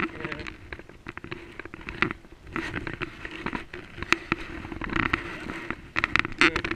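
Kayak paddle strokes: the blades dipping and splashing in the water every second or two, with water dripping and many small clicks and knocks.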